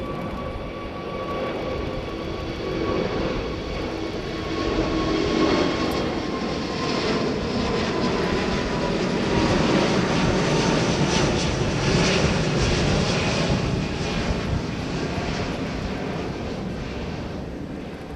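Airbus A380-800's four Rolls-Royce Trent 900 turbofans at takeoff climb power as the airliner passes overhead: a loud jet roar with a whining tone that slides slowly downward. It builds to its loudest about ten seconds in, as the aircraft is directly above, then eases off.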